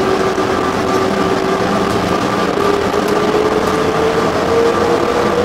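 SFO AirTrain automated people-mover car running along its guideway, heard from inside the car: a steady rumble of running noise with a motor whine that rises slowly in pitch.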